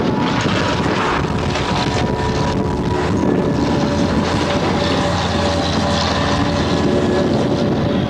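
Diesel engine of heavy demolition machinery running steadily, a continuous rumbling drone with no distinct impacts.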